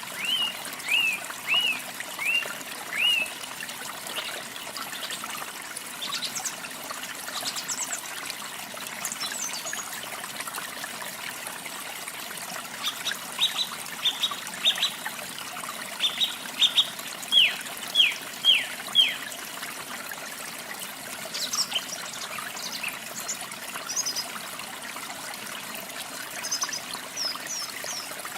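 Steady rush of falling water with songbirds singing over it: series of short, quickly repeated downward-sweeping notes, and scattered higher calls later on.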